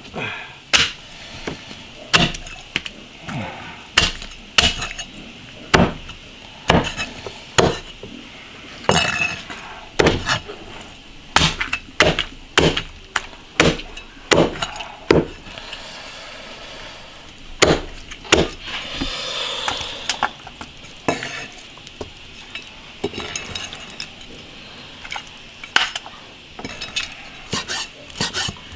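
Chinese cleaver chopping through cooked chicken on a thick wooden chopping block: sharp, separate knocks about one or two a second. Near the end the strokes come quicker and lighter as the cleaver slices cooked pork stomach.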